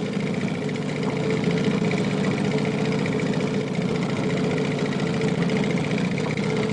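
Boat engine running steadily at low revs, a constant drone.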